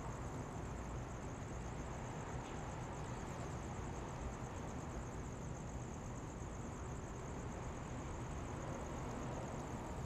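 Steady distant city traffic hum, a low even rumble with no single vehicle standing out, under a continuous high-pitched pulsing trill.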